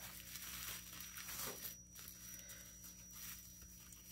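Faint crinkling and tearing of bubble-wrap packaging being opened by hand, in soft, irregular strokes.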